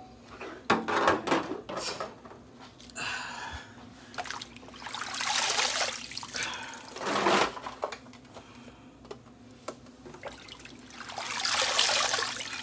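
Water pouring and dripping back into a sinkful of water as handfuls of wet collard greens are lifted out, in several swells. A few knocks about a second in.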